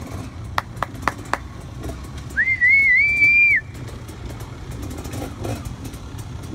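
A spectator's loud, wavering whistle, about a second long, cheering a passing dirt-bike rider, over a steady low rumble. Four sharp clicks come shortly before it.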